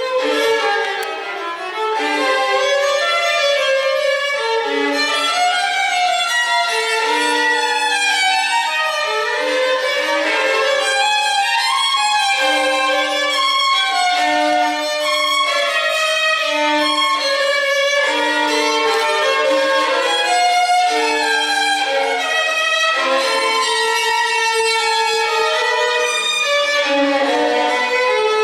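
Violin music: a melody of many short notes moving up and down, played without a break.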